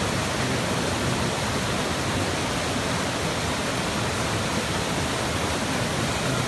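Fast mountain river rushing hard over rocks, a steady loud roar of whitewater, swollen with snowmelt and rain.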